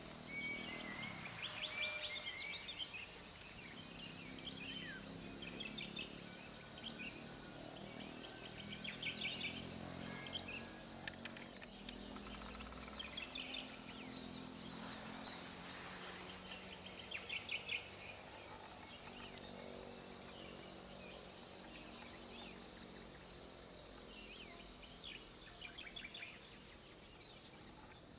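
Open-air ambience: a steady high-pitched insect drone with birds chirping in short repeated trills and a few whistles. A faint low hum sits underneath through the first half.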